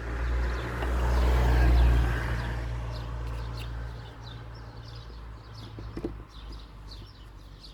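A motor vehicle engine passing by, swelling to its loudest about two seconds in and then fading away, with small birds chirping throughout.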